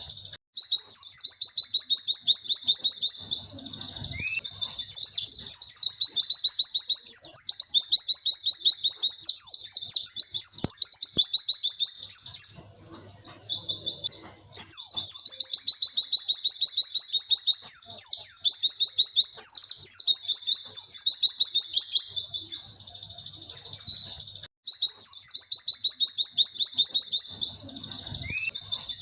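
White-eye (pleci) singing long runs of rapid, high 'wit-wit' notes, each run lasting several seconds, with short pauses between the runs.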